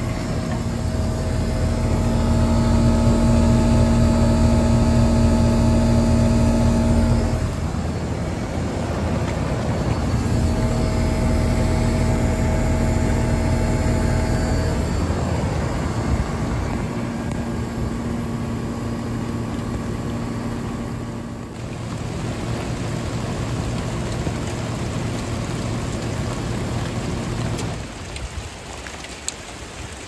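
1990 York Stellar air conditioner running: its three-phase reciprocating compressor hums loudly and steadily along with the condenser fan, with rain falling on the unit. Near the end the low hum drops away as the unit shuts down.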